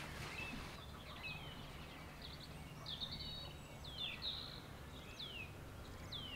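Faint birdsong in the background: a string of short chirps that sweep downward in pitch, about one a second, over a low outdoor hiss.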